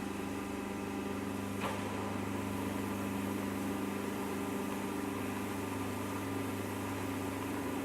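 Hellobaler vertical baler's electric hydraulic pump running with a steady hum, with one short click about a second and a half in.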